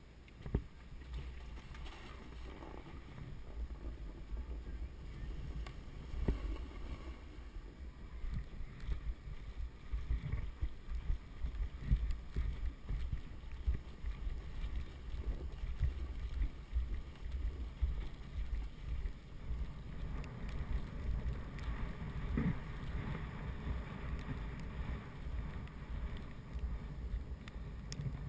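A snowboard sliding and scraping down through powder snow, with many irregular bumps, under a steady rumble of wind on the GoPro's microphone.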